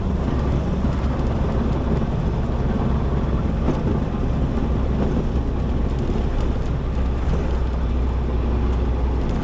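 Single-engine Cessna's piston engine running steadily, heard as an even drone inside the cockpit.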